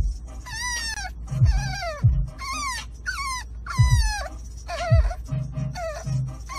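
French bulldog puppy whining over and over, a run of high-pitched cries that each slide down in pitch, over a low steady rumble.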